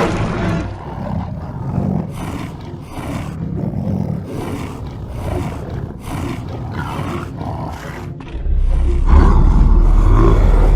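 A run of roar sound effects, one after another. About eight seconds in, a loud deep rumble begins.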